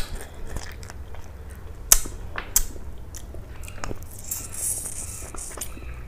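Close-miked eating: biting and chewing food, with several sharp crunches, the loudest about two seconds in, and a brief hissing sound a little after four seconds.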